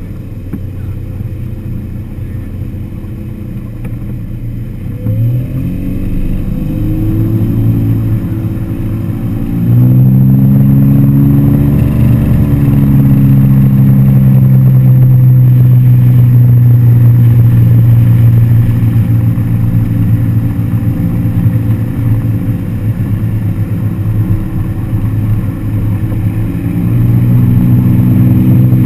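Motorboat engine accelerating from a low run: its pitch rises after a few seconds, it jumps louder about a third of the way through, then holds a steady fast run, dipping briefly near the end before climbing again.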